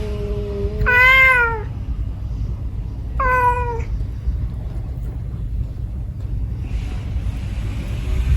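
A domestic cat yowling: a long, held cry trails off about a second in, then two shorter calls of about half a second each, falling in pitch, come roughly two seconds apart. A steady low rumble sits underneath.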